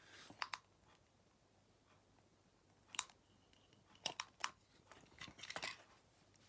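Plastic side-feed correction tape roller handled and pressed across paper: faint plastic clicks and a few short scratchy strokes of the tape tip on the sheet, with one sharper click about three seconds in.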